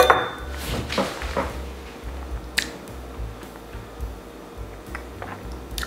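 A whisky nosing glass set down on the tabletop with a short clink right at the start, followed by a few softer knocks and a single click a couple of seconds later. Quiet background music runs underneath.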